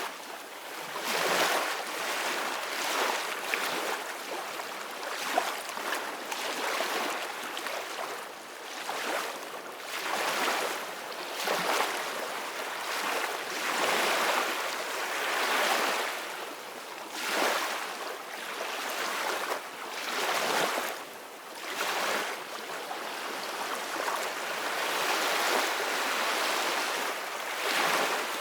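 Sea waves crashing and washing in repeated swells that rise and fall every two or three seconds, with wind.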